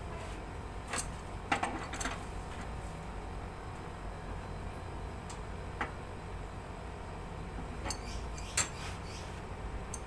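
Scattered metallic clinks and clanks of an adjustable wrench on the flare nuts and service valves of an air conditioner outdoor unit as the refrigerant pipes are tightened back on: several in the first two seconds, a couple around the middle, and two more near the end.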